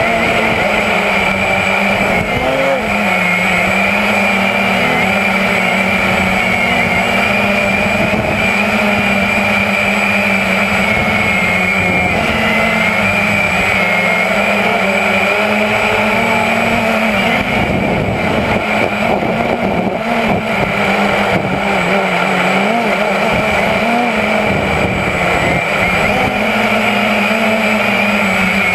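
Walkera QX350 quadcopter's electric motors and propellers whining steadily, heard close up from the drone's own camera, the pitch wavering slightly up and down as the throttle changes.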